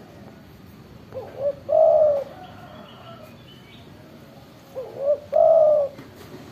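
Spotted dove cooing: two calls about three and a half seconds apart. Each is two short notes followed by a longer held coo.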